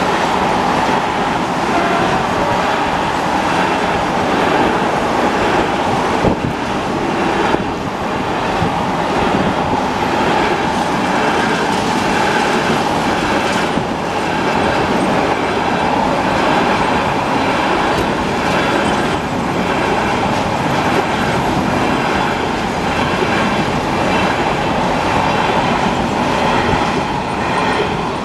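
Container freight train of intermodal wagons rolling past over a level crossing: a steady loud rumble and rush of wheels on rail, with the clickety-clack of wheels over rail joints, easing off right at the end as the last wagons go by.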